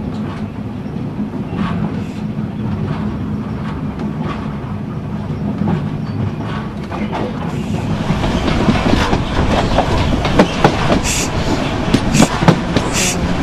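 Sleeper train coaches running along the track: a steady rumble of wheels on rail with clicks from the rail joints. It gets louder from about eight seconds in, with several sharp clicks near the end.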